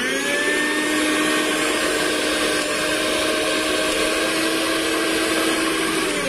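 Sonali Crown 500-watt mixer grinder motor running empty with no jar fitted: it spins up at the start, then holds a steady whine. Near the end it slows briefly as the speed knob is turned and picks up again.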